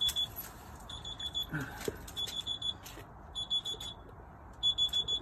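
Electronic alarm beeping: short bursts of rapid high-pitched beeps, repeating about every second and a quarter.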